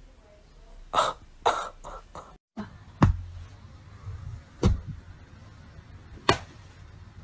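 A few short, noisy puffs of sound, then three sharp slaps about a second and a half apart: hands slapping down one on top of another in a hand-stacking game on a cushion.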